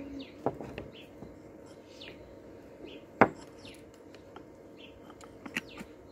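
Stones being set by hand among other stones and a small clay flowerpot in a terracotta bowl, giving a few light clicks and one sharp knock about three seconds in. Small birds chirp in the background.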